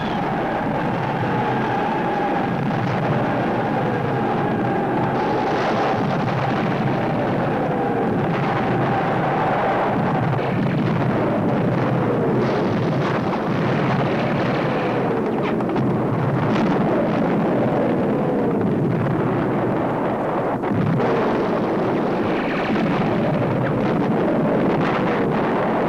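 World War I battle soundtrack: incoming artillery shells whistling down, about one every two seconds, over a dense, continuous din of shell bursts and gunfire.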